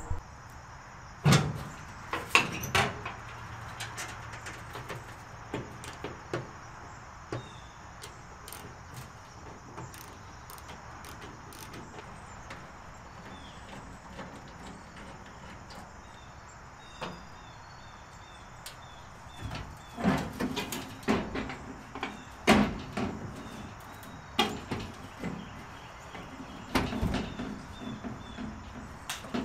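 Scattered metallic clunks and knocks from handling the raised hood of a 1953 Dodge pickup, with a busier run of knocks about two-thirds of the way through.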